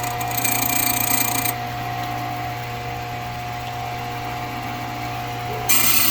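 HPC 1200 Blitz code key-cutting machine running with a steady motor hum. Its cutter grinds notches into a car key blank, loudly for the first second and a half and again near the end.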